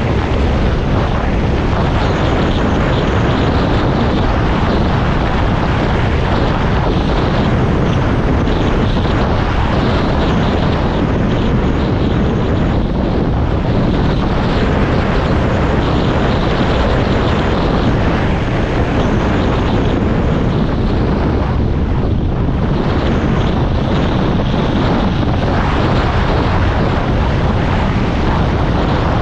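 A vehicle running steadily, with a loud, even rushing noise and no breaks or changes.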